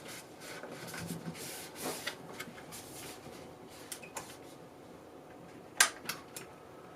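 Handling noises from working on a PC: short rustling swishes, then a few small clicks and knocks, with one sharp click a little before the end.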